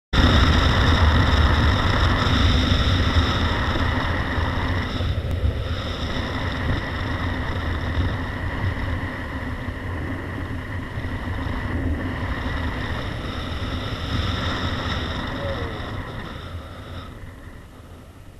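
Honda motorcycle riding on the road, a dense engine rumble mixed with wind noise on the bike-mounted microphone. It is loudest at the start, eases off gradually and drops away in the last second or two.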